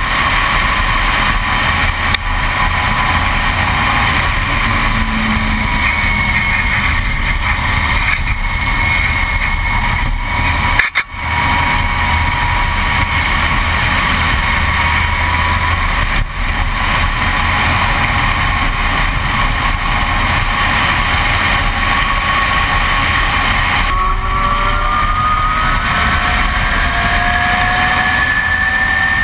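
Onboard sound of a 2012 Zero S ZF9 electric motorcycle at racing speed: steady wind rush over the microphone with the electric motor's thin whine. Near the end the whine climbs in pitch as the bike accelerates.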